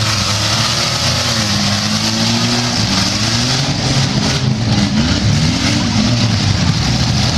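Demolition derby pick-up and van engines revving hard, several at once, their pitches rising and falling and crossing over a steady noise.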